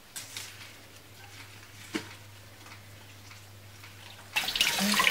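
Faint rustling of scallions being handled in a stainless steel bowl, with one small tap about two seconds in. Near the end a faucet is turned on and water runs into the bowl, suddenly much louder.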